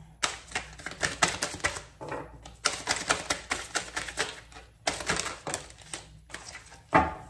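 A deck of tarot cards being shuffled by hand: quick runs of dry clicks and flicks of the cards, in several bursts with short breaks between.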